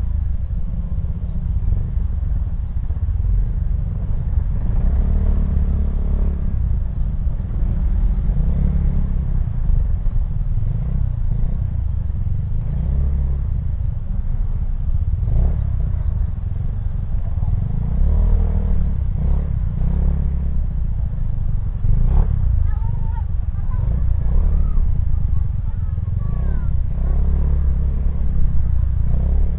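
Motorcycle engine running at low speed in stop-and-go street traffic: a steady low rumble that swells and eases as the throttle opens and closes.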